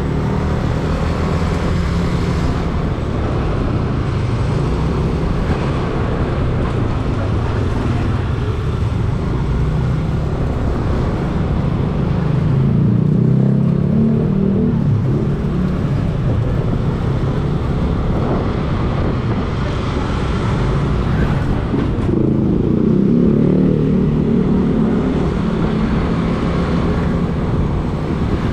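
Motor vehicle engine running with steady road and traffic noise. The engine note swells louder twice, about twelve seconds in and again a little past twenty seconds in.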